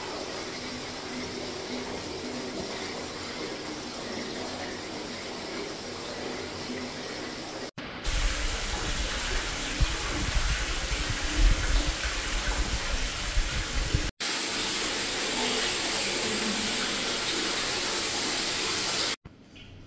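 Hot-spring water running steadily into a stone bath, an even rushing hiss. For several seconds in the middle a louder, gusty low rumble sits over it.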